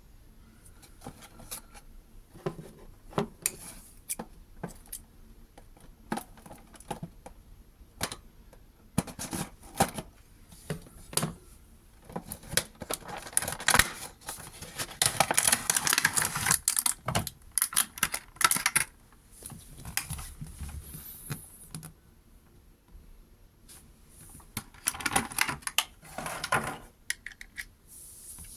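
Toy packaging being opened by hand: scattered clicks and taps of small plastic parts, with two longer stretches of crinkling and tearing packaging, the louder one in the middle.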